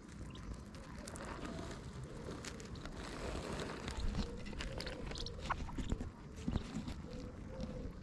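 Mandarin duck hen and duckling pecking seed from the grass close up: a run of irregular beak clicks and small crunches.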